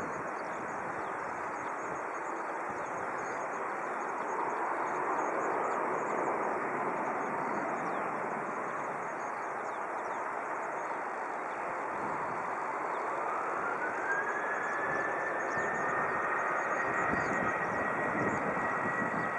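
Boeing 737's CFM56 turbofan engines running at low thrust with a steady rushing noise. About twelve seconds in, a whine rises in pitch and then holds high as the engines spool up for take-off.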